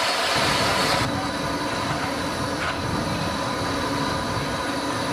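Rebuilt Bulleid West Country class steam locomotive 34046 Braunton standing and hissing steam steadily, with a low rumble coming in underneath under half a second in.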